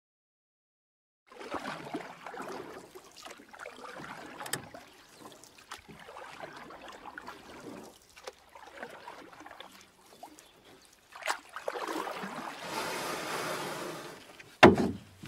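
Kayak paddle strokes through shallow, weedy marsh water: irregular splashing and trickling as the blades dip and lift, starting after a second or so of silence. A single loud knock near the end.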